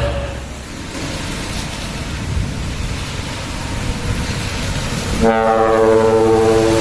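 Road and engine noise from a passing dump truck, then about five seconds in a ship-style trumpet air horn starts with a steady, full-chorded blast that holds for the last second and a half.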